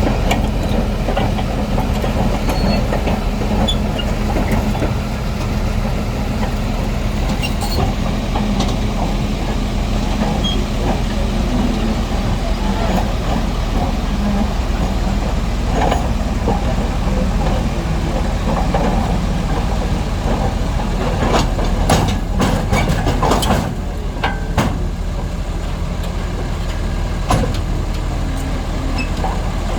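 Heavy diesel engine running steadily with a deep, even hum. A cluster of sharp knocks comes about two-thirds of the way through, and one more near the end.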